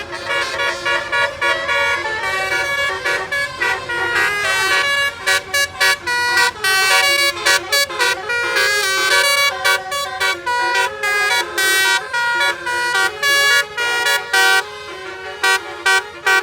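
Indonesian bus's telolet (basuri) musical air horn playing a fast tune of many short notes that step up and down in pitch; from about five seconds in the notes come more clipped, with brief gaps between them.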